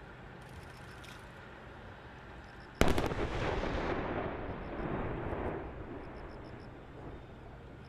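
Explosive munitions detonating on a firing-range target area: a sudden sharp blast about three seconds in, rolling into a rumble that swells again and fades over the next few seconds.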